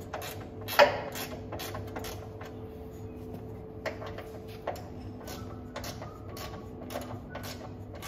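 Hand tools clicking and clinking on the bolts of a van's metal front bumper as they are tightened down: one sharp metal clack about a second in, then scattered lighter clicks, over a faint steady hum.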